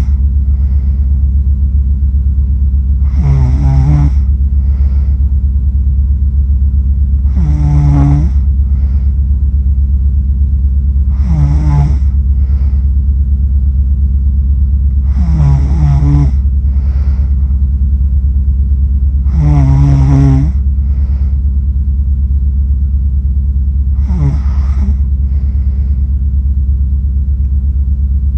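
A sleeping person snoring, a loud snore about every four seconds with a softer breath after each. A steady low hum runs underneath.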